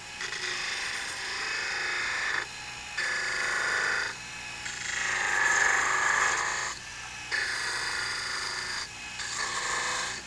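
Spindle gouge cutting into a spinning wood spindle on a lathe: a hiss of wood being shaved off in about five passes of a second or two each, with short breaks between, as a cove is cut. The lathe's motor hums low underneath.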